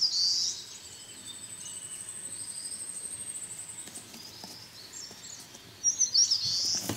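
Birds chirping in short high calls at the start and again about six seconds in, with a thin, high, steady trill held for a few seconds in between.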